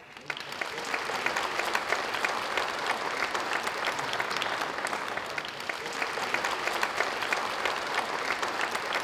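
Audience applauding, many hands clapping together. The applause swells during the first second and then holds steady.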